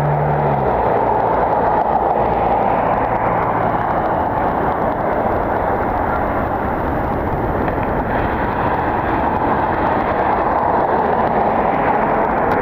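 Loud, steady rushing noise of jet aircraft engines.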